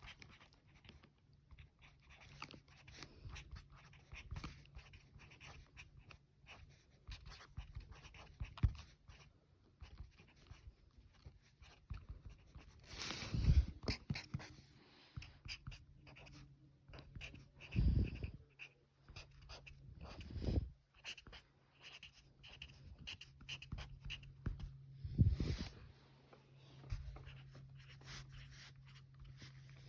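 Quick scratchy coloring strokes on paper, with four loud heavy breaths close to the microphone spread through the second half.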